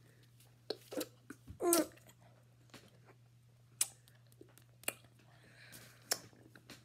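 A boy chewing a sticky sour gummy candy, with scattered sharp wet mouth clicks and smacks and a short voiced "mm" about two seconds in.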